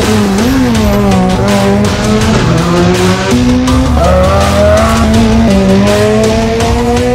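Rally car engines revving hard, their pitch climbing and dropping back at each gear change and rising steadily near the end as a car accelerates, mixed over loud background music.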